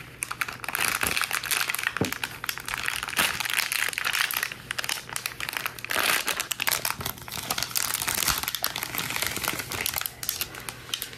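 Thin plastic wrapping crinkling and crackling as hands tear it open and pull a clear plastic food tray out of it.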